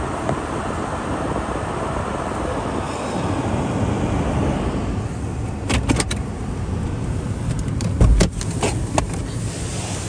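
A vehicle running steadily, heard from inside the cab. In the second half come a few sharp clicks, then a heavy thump a little after 8 s and more clicks.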